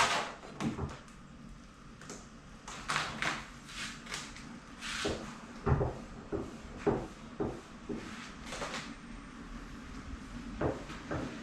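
Irregular knocks and clicks, a few with a dull low thump, as of objects being handled and set down.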